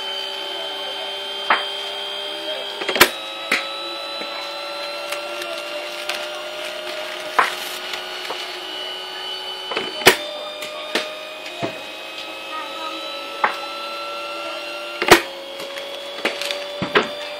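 Pacemaker cricket bowling machine whining steadily, its pitch dipping with each of three loud cracks as balls are fired through it about five to seven seconds apart, then slowly recovering. Lighter knocks of ball on bat or ground follow each delivery.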